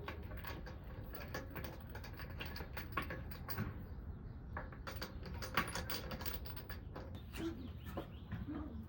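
Scattered light clicks and knocks of tools and metal parts being handled during rear-wheel brake work, with no steady rhythm.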